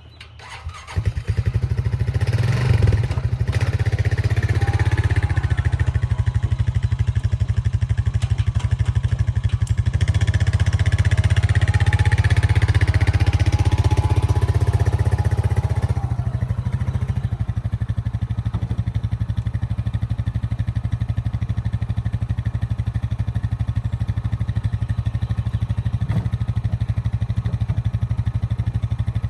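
ATV engine running, coming in loud about a second in and easing down to a lower, steady level a little past halfway through.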